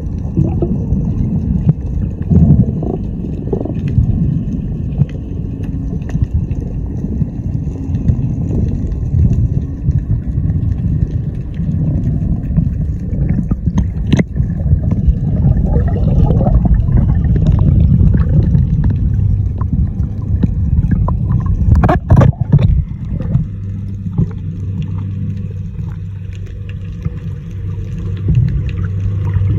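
Boat engine running under way, with a loud low rumble of engine, water and wind noise, a few sharp knocks, and a steady low hum coming in near the end.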